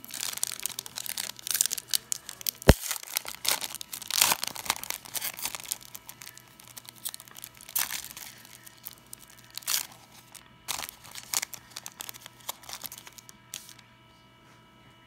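Foil wrapper of an Elite Extra Edition baseball card pack being torn open and crinkled, with a single sharp snap a few seconds in. The crinkling thins out and stops shortly before the end.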